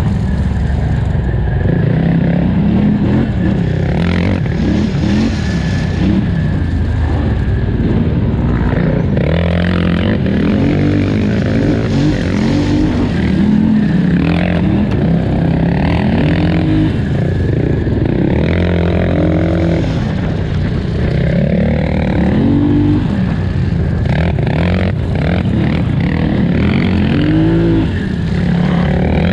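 Polaris Scrambler 1000XP ATV's twin-cylinder engine under hard throttle, its pitch climbing and dropping again over and over as the rider gets on and off the gas, with a few knocks mixed in.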